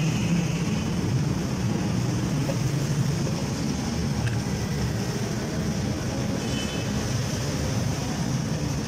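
Steady low mechanical rumble, like engine or traffic noise, with a faint short high-pitched double tone about two-thirds of the way through.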